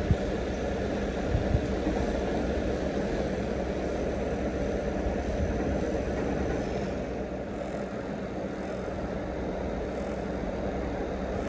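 Handheld percussion massage gun running with a steady, rapid buzzing hum as its head is pressed into the hip and thigh through clothing. There are a couple of brief knocks in the first two seconds, and the sound gets a little quieter from about seven seconds in.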